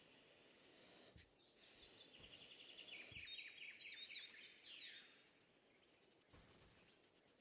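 Faint high-pitched bird chirps that fall in pitch, with a fast trill of short chirps in the middle, over low background noise.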